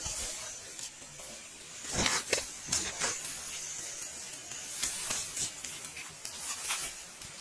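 Dry leaves and twigs crackling under the tyres of a 1/12-scale MN-91 RC crawler as it drives over leaf litter, loudest in a cluster of crackles about two to three seconds in, over a steady high hiss.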